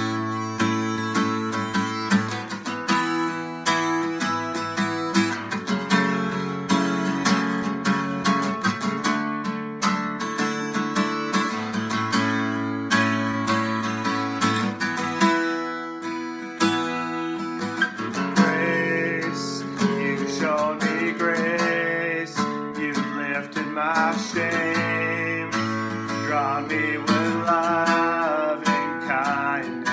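Acoustic guitar being strummed in a steady rhythm as a song's introduction; about 18 seconds in, a man's singing voice joins the guitar.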